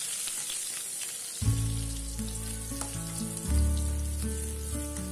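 Sliced shallots and garlic sizzling in hot cooking oil in a wok, a steady hiss. About a second and a half in, background music of held notes with a bass line comes in over it.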